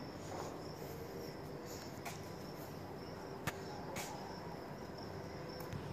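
Faint steady background hiss with a thin, continuous high-pitched whine, broken by a couple of faint clicks around the middle.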